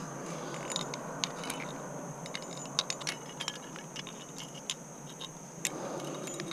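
Climbing hardware clinking: aluminium carabiners and quickdraws knocking against each other and the rock in scattered sharp clicks as a quickdraw is handled for clipping.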